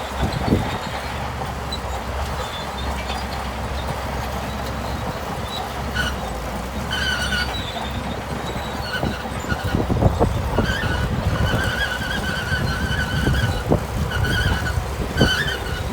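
Shantui crawler bulldozer running under load with a steady low engine rumble. From about six seconds in, high squeals come and go over it, along with scattered clanks.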